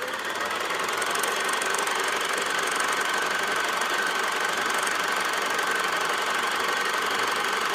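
Old film projector running: a steady, rapid mechanical clatter that swells in over the first second, then holds even.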